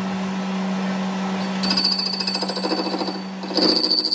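Metal lathe running with a steady hum as its chuck spins a metal flange. About one and a half seconds in, the cutting tool bites the face, giving a rapid rattle with a high ringing tone. It eases off and bites again, louder, near the end.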